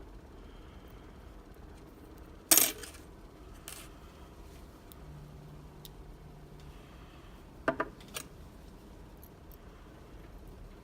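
Small metal lock parts and tools clinking against a hard surface: a sharp clink about two and a half seconds in, a lighter one a second later, and a quick double clink near eight seconds.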